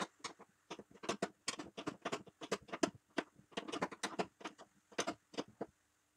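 Metal spanner clicking and clinking on a ball joint's nut and bracket as the ball joint is screwed in and tightened: short irregular clicks, several a second, with a pause near the end.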